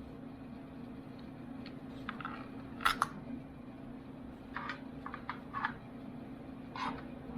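Hands handling a small plastic gadget and its packaging: a few short clicks and scrapes, the sharpest pair about three seconds in, over a steady low hum.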